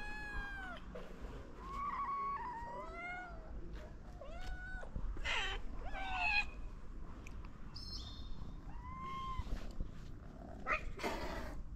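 Several hungry stray cats, a ginger kitten among them, meowing again and again in short calls of different pitches, begging for food. A short noisy burst comes near the end.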